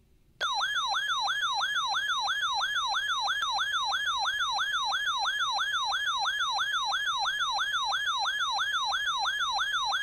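NOAA weather alert radio sounding its warning siren, a loud tone that sweeps downward about three times a second, starting about half a second in. It is the radio's alarm for a received Severe Thunderstorm Warning.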